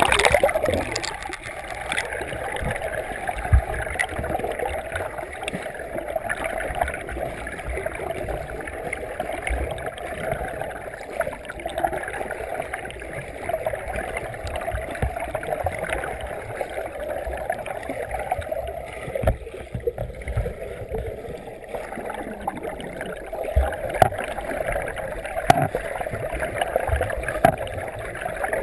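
Muffled churning and bubbling water from a freestyle swimmer's arm strokes and kicks, heard through an underwater camera, with scattered low thumps.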